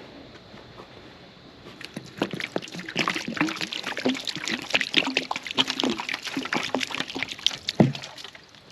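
Water poured from a jug onto a log, splashing and trickling for about six seconds from about two seconds in, with a sharp knock near the end.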